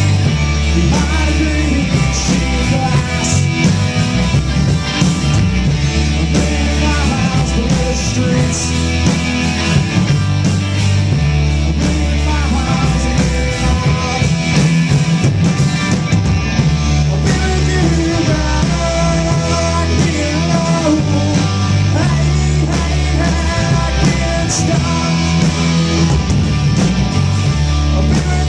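Live rock band playing loud and steady: electric guitars over bass guitar and drums, with no lyrics sung in this stretch.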